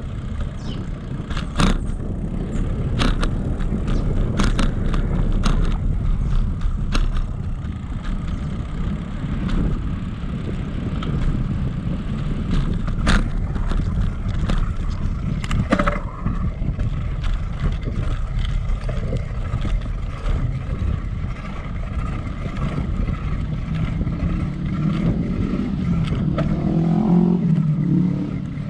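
Wind rumble on the microphone of a handlebar-mounted camera while cycling, with tyre noise and sharp clicks and rattles from the bicycle over bumps in the path. A wavering, engine-like drone swells near the end.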